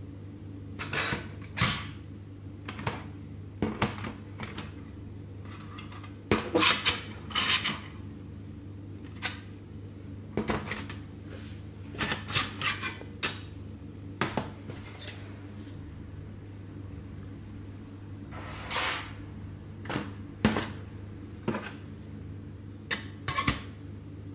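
Titanium alcohol burner and folding titanium stove frame clinking and knocking against each other and the metal tabletop as they are handled and fitted together. The clinks come irregularly and are loudest a few seconds in and again about two-thirds through.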